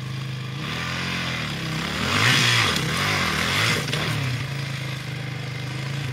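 Dirt bike engine idling steadily while a second off-road motorcycle engine revs up and down over it, loudest about two to four seconds in. The idling engine stops right at the end.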